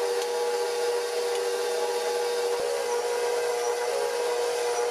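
KitchenAid Professional 600 bowl-lift stand mixer's 575-watt motor running at low speed with a steady whine, its flat beater turning through cookie dough as flour is mixed in.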